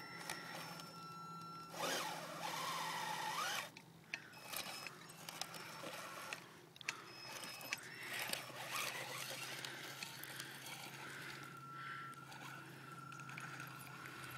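Team Associated RC18MT 1/18-scale electric monster truck with a brushed motor and Traxxas XL-5 speed control crawling over rocks and gravel. The motor whines in short bursts while the tyres scrape and crunch on stones, with a louder rising whine about two seconds in.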